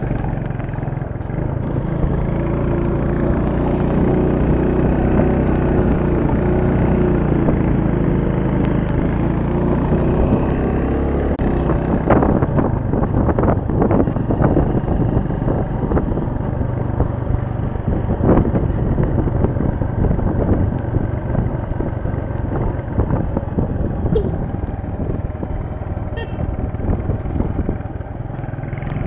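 A motor vehicle's engine running steadily, with irregular knocks and rattles from about halfway on.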